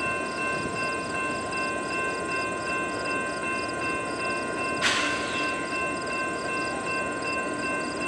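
Railroad grade-crossing bell ringing steadily, about three strokes a second, over the rumble of freight cars rolling past. A single sharp bang comes about five seconds in.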